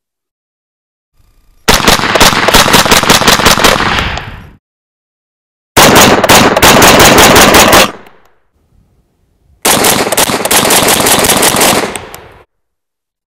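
Taurus CT9G2 9mm semi-automatic carbine fired as fast as the trigger allows in a mag dump: three strings of quick, loud shots, each about two to three seconds long, with short pauses between.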